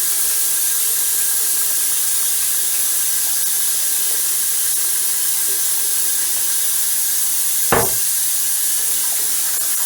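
Hot water running steadily from a faucet into a sink, an even hiss, with one sharp knock about three quarters of the way through.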